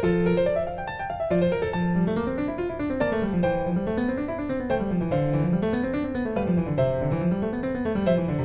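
Background piano music: rolling arpeggios, the lower line climbing and falling in repeated waves at a steady pace.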